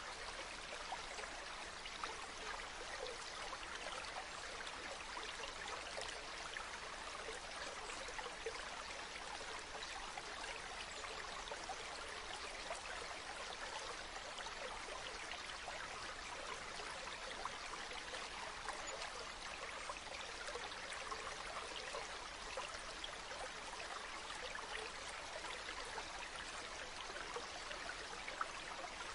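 Shallow water running over small pebbles: a steady babble with fine trickling and splashing throughout.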